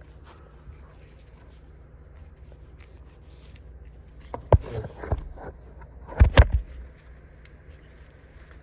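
A hatchet multi-tool being handled while its fold-out pliers are worked open: soft rubbing, then a sharp click about halfway through and a quick cluster of loud clacks a little later.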